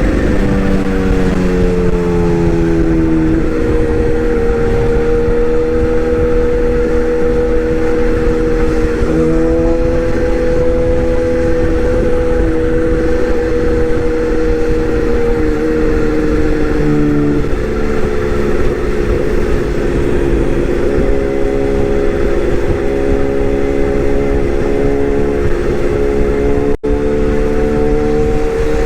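Excavator's diesel engine running steadily, its pitch drifting slightly up and down as the load changes.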